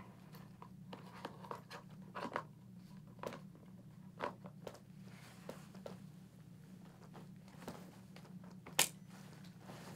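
Faint rustling and light clicks of hands handling a race suit's mesh liner and plastic back-protector holder while the In&motion In&box airbag control unit is slid into position, with one sharper click near the end.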